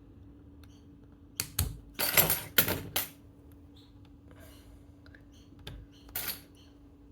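Small sharp clicks and taps as a tiny 2 mm metal rod key is handled and pushed into drilled holes in an RC gearbox's counter gear, with a cluster of loud clicks about one and a half to three seconds in and a shorter scrape around six seconds in.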